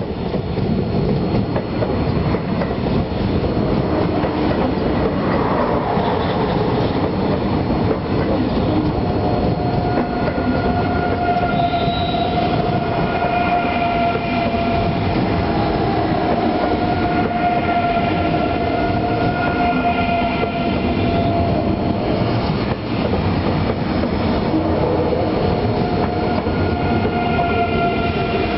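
An ICE 3 high-speed electric multiple unit rolling past as it pulls out of the station: a steady, loud rumble of wheels and running gear, with high whining tones that come and go over it from about a third of the way in.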